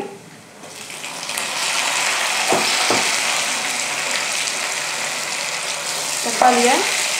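Sliced tomatoes dropped into hot coconut oil with fried onions and dried chillies, sizzling and frying. The sizzle builds over the first two seconds and then holds steady while a wooden spoon stirs, with two knocks of the spoon on the pan about half a second apart near the middle.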